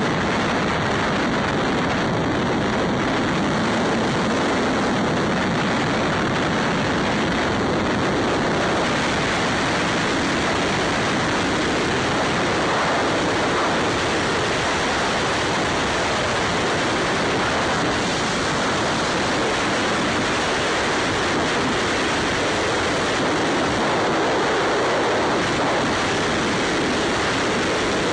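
Steady rush of wind and road noise on a camera riding on a Ducati Scrambler motorcycle at highway speed, one unchanging roar with no engine note standing out.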